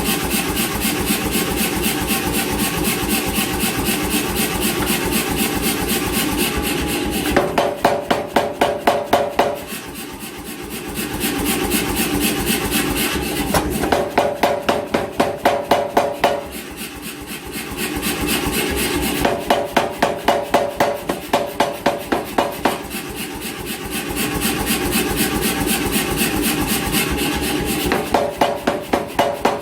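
88 lb C41 self-contained air power hammer running, its machinery giving a fast, steady pulse. Four times it delivers a run of heavy blows, about four a second, each with a metallic ring, with quieter running in between.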